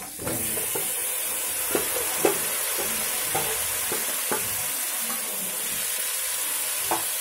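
Marinated chicken pieces land in hot butter and oil in an aluminium pressure cooker and sizzle steadily, the sizzle starting suddenly just after the start. A spatula knocks and scrapes now and then as the pieces are stirred into the fat to fry.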